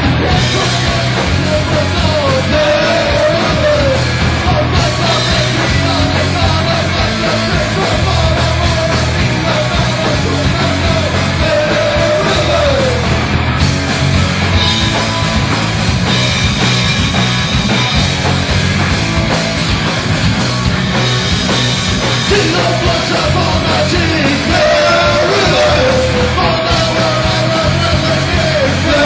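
Live rock band playing loud: electric guitar, bass and drums, with the singer yelling into the microphone, his voice dropping out for several seconds in the middle.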